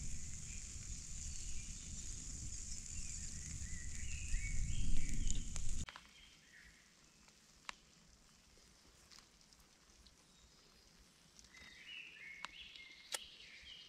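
Outdoor woodland ambience: small birds chirp in short runs of notes twice, over a low rumble and hiss that cut off abruptly about six seconds in, after which a few sharp clicks stand out against quiet background.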